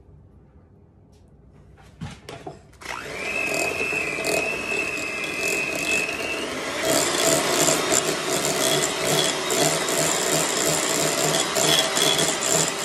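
Electric hand mixer starting up about three seconds in and running steadily with a motor whine as its beaters churn cream cheese and butter. Around seven seconds in the whine steps up in pitch and the mixer gets louder.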